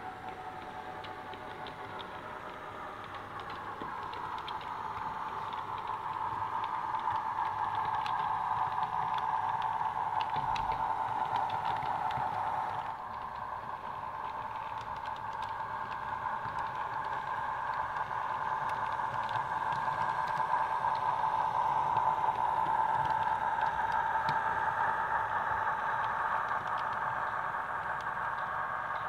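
OO gauge model train running on the layout: a steady whine that swells as it comes closer, with light ticking of the wheels over the track.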